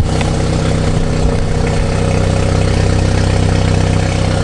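BMW G30 530i exhaust at a steady cold-start idle, heard at the tailpipe. The engine is its 2.0-litre turbocharged four-cylinder, and it runs like this because it is still cold.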